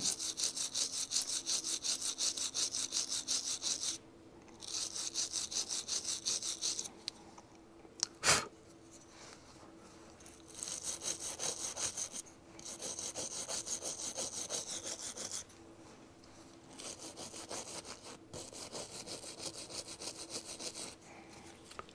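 Small wire brush scrubbing corrosion off the metal mounting tabs of an ignition stator coil, to give the coil a clean ground connection. It goes in fast back-and-forth strokes in several bouts with short pauses between them. There is a single sharp tap about eight seconds in.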